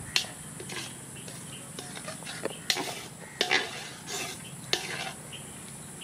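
Hands handling dressed quail on a plastic plate: irregular short scrapes, taps and knocks of meat and fingers against the plate, over a steady high hiss.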